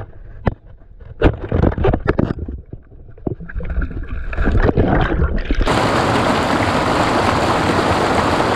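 Muffled knocks and bubbling heard underwater in a river pool; about five and a half seconds in, the sound switches suddenly to a steady rush of stream water and splashing above the surface.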